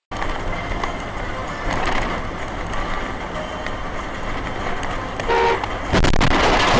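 Road traffic noise with a car horn giving one short honk about five seconds in. About a second later a sudden, louder burst of noise sets in and keeps going.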